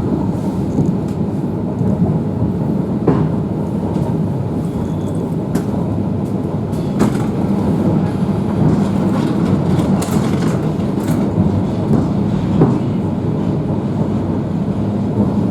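Electric commuter train running, heard from inside the carriage: a steady rumble of wheels on track with a few scattered sharp clicks.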